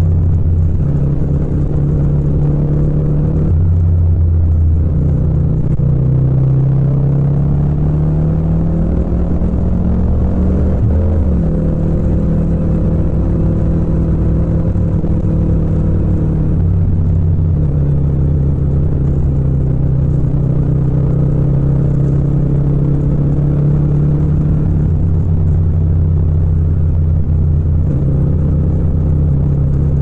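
Yamaha MT-07's parallel-twin engine running under way, its note rising and dropping back several times as the throttle and gears change.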